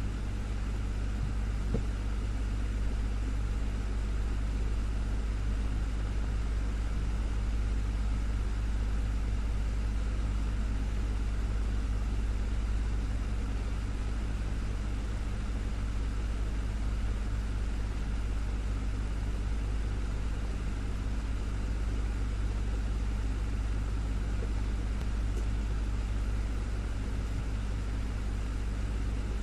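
Desktop fan running steadily: a low motor hum with a few steady tones above it and an even rush of moving air.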